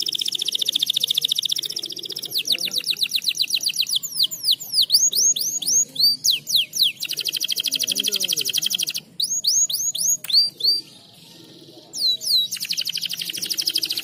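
Male domestic canary singing a long, loud song in breeding condition: fast, high trills of rapidly repeated notes alternating with runs of falling whistled notes, with a brief pause about three quarters of the way through.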